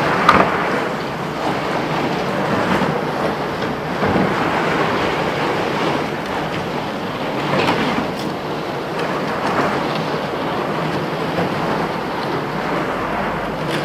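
Continuous rustling and rumbling noise from a camera carried in a jacket pocket, the fabric rubbing over the microphone as the wearer walks, swelling now and then.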